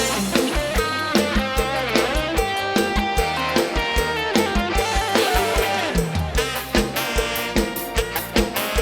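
Instrumental music with a steady beat: an instrumental break in a sung jingle.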